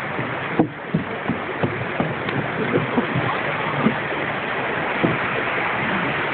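Wind rushing and buffeting on the phone's microphone, a steady roar broken by many short, irregular low thumps.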